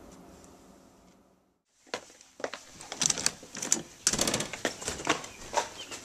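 Faint room tone, a brief dead gap, then a run of irregular clicks and knocks from about two seconds in: handling noise and footsteps as a hand-held camera is carried through a house.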